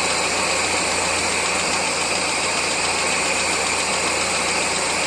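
1999 Mazda Miata's 1.8-litre four-cylinder engine idling steadily on all four cylinders, with a light tapping from the top end. The tapping is not cured by setting the valve lash to spec or changing the oil, and seems loudest above the number 4 spark plug.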